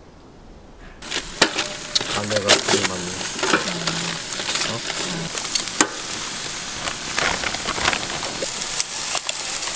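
Lamb chops sizzling on aluminium foil over a grill. The sizzle starts suddenly about a second in and carries on steadily, with frequent sharp crackles and pops.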